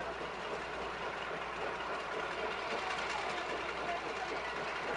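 Diesel locomotive idling with a steady low running sound, with people talking in the background.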